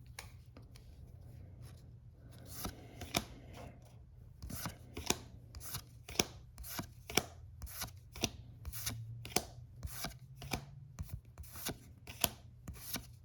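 Pokémon trading cards being flipped one behind another by hand, a quick sharp snap of card on card at about two a second, starting a few seconds in.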